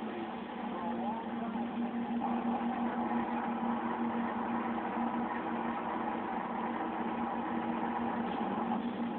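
Automatic car wash machinery running, heard from inside the car's cabin: a steady noise with a low hum under it.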